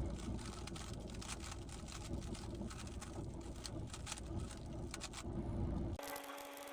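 Plastic clicking of a GAN 15 speed cube being turned in quick runs of moves during a blindfolded solve, over a steady low rumble. About six seconds in, the sound cuts abruptly to a quieter steady hum.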